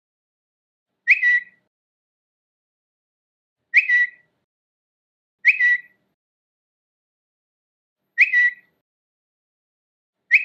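Twitter notification sound, a short bird-like chirp with a quick upward flick settling on a high note, played five times at uneven gaps of two to three seconds.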